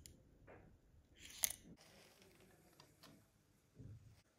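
Small plastic model-car parts being handled in gloved fingers: a few faint clicks, a sharper click about a second and a half in, and a soft low knock near the end.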